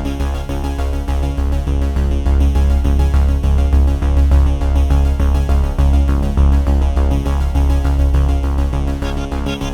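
Electronic background music with synthesizer and a steady bass beat.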